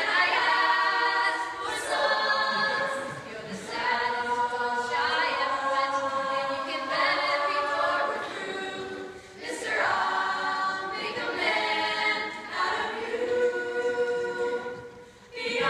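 All-female a cappella group singing in close harmony, several voices together without instruments, in phrases with brief dips between them, the longest just before the end.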